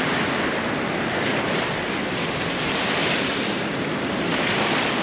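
Ocean surf washing in over a shallow, rocky shoreline: a steady rushing of breaking and receding waves.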